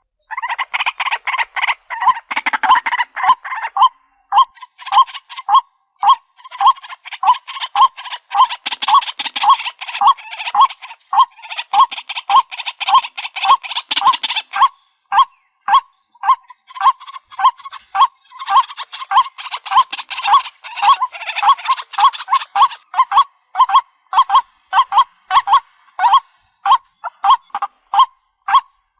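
Waterhen calling: a steady series of short repeated notes, about two a second, with stretches of rougher, noisier calling over them that come and go several times.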